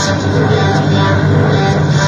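Loud experimental noise music: a dense, unbroken, distorted wall of sound with held electronic keyboard tones, made with homemade noise gear and a Casio keyboard.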